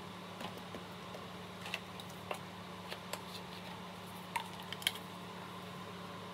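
Scattered light clicks and taps, about a dozen at irregular intervals, the two loudest close together near the end, over a steady low hum.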